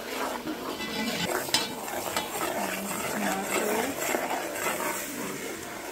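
A slotted metal spoon stirring and scraping through frying onion and spice masala in a steel pot, with sizzling and short clinks of the spoon against the pot.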